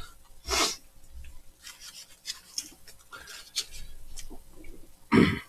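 Chewing of flaky chestnut pastry close to the microphone: irregular small crunching and crackling sounds, with a short louder sound about half a second in and another near the end.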